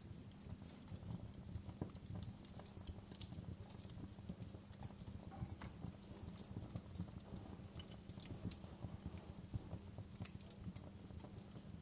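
Wood fire in a fireplace crackling: irregular sharp pops and snaps over a steady low rumble from the burning logs.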